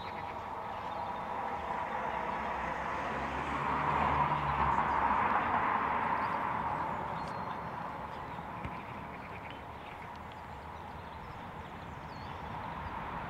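A football ground hushed for a minute's silence: no voices, only a steady outdoor background rush that swells from about three and a half seconds in and eases off after six.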